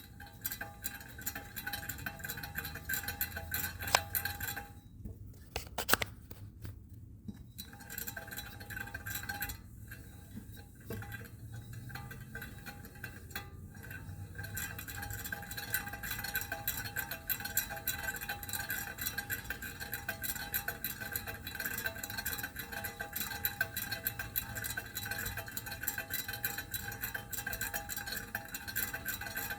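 Failing wheel bearing on a 2012 Mazda CX-9: a steady whine over a fast, gritty clicking and a low hum, the sign of a worn bearing. The clicking drops away briefly a few times in the first half, then runs on steadily.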